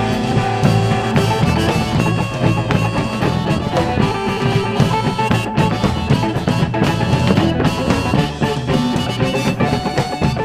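A blues band plays an instrumental passage live, with electric guitar over bass and a drum-kit groove and no vocals.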